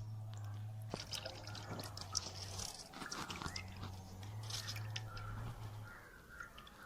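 Cooking oil being poured into a heated frying pan: a faint trickle with a few light knocks.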